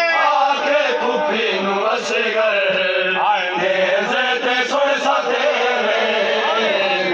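Men chanting a nauha, a Shia mourning lament, in loud unison. A few sharp slaps of chest-beating (matam) cut through the chant.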